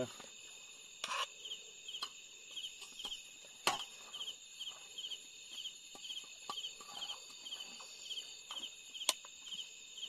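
Night insects, crickets, keeping up a steady high chirping chorus that pulses about two to three times a second. A few sharp clicks come through it about a second in, near the middle and near the end.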